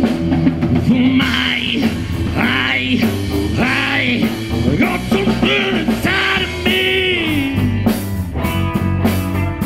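Live rock trio playing: drum kit, bass guitar and electric guitar, with a lead line that bends up and down in pitch over a steady beat.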